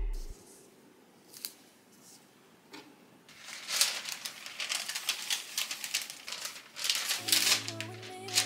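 Paper and cloth rustling and crinkling as a paper pattern and a trial blouse are handled, a dense run of rustles from about three seconds in. Soft music comes back near the end.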